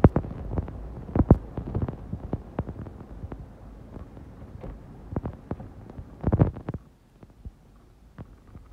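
Snowplow truck pushing snow with its blade: a low rumble with irregular knocks and clunks, a loud cluster of them about six seconds in, after which it goes much quieter.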